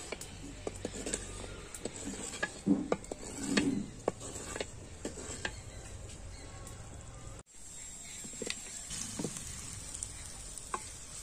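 Wooden spatula scraping and knocking around a clay cooking pot of hot mustard oil, with two louder knocks about three seconds in. After a cut about seven seconds in, pieces of kuche (mud eel) sizzle as they fry in the oil.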